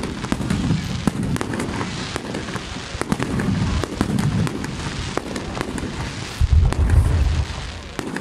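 Aerial fireworks display: shells bursting overhead with dense crackling and repeated booms, the heaviest booms coming about two-thirds of the way through.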